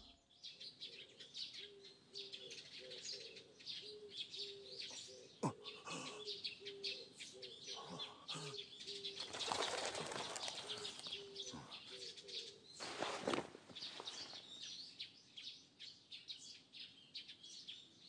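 Quiet outdoor birdsong: small birds chirping over a dove cooing in short, evenly repeated notes, with a few rushes of wings flapping partway through.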